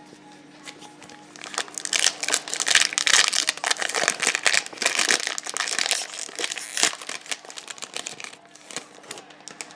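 Trading-card pack wrapper being torn open and crinkled, a dense crackling run for several seconds that thins out to scattered crinkles near the end.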